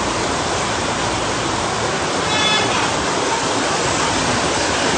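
Steady rush of running water from a saltwater reef aquarium's circulation and filtration. A brief faint high-pitched tone comes through about halfway.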